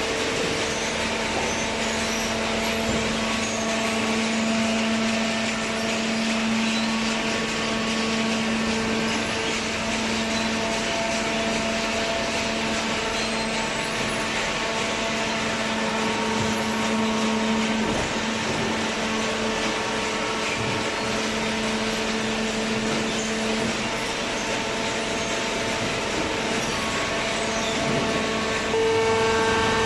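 Small hydraulic baler's electric pump motor running with a steady hum and hiss; about a second before the end it grows louder, its hum stronger.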